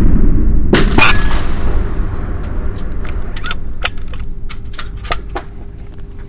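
Loud gun noise reverberating through an indoor shooting range and slowly fading, with two sharp cracks about a second in. A string of short sharp clicks and knocks follows as the rifle is handled on the bench.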